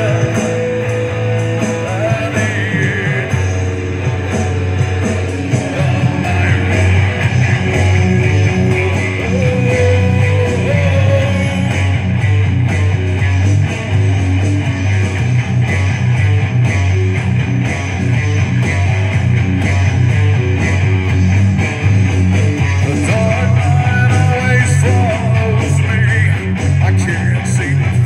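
Live rock band playing, with strummed guitar to the fore over a steady low beat.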